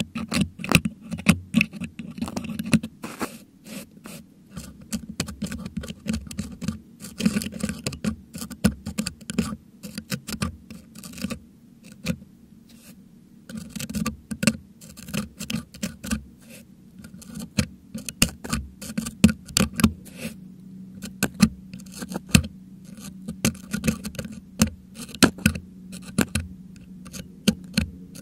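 Metal dental hook scraping and picking at the metal grille of a Blue Yeti microphone, prying out crushed meringue, heard right on the microphone: a dense, irregular run of scratches and sharp clicks with a short lull about twelve seconds in.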